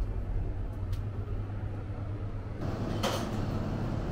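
Steady low hum of indoor room noise, with a faint click about a second in and a short sharp knock about three seconds in.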